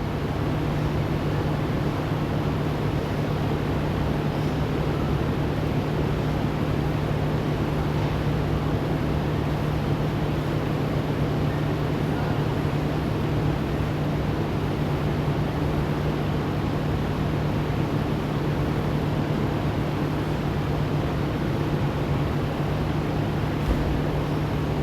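A steady low hum over even background noise, unchanging throughout, with no distinct knocks or drops.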